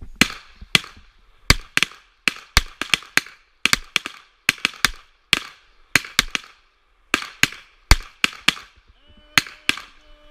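Pistols firing a timed series of fast, overlapping shots from several shooters, about two dozen sharp reports in quick, irregular succession with short pauses between groups. A steady humming tone starts near the end.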